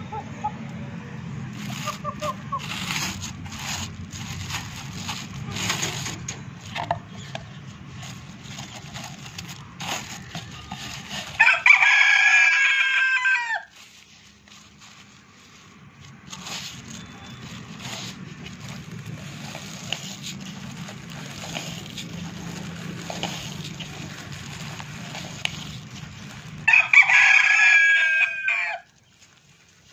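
A rooster crows twice, each crow about two seconds long and some fifteen seconds apart; these are the loudest sounds. Between the crows there is a low rumble with scattered clicks and rustles.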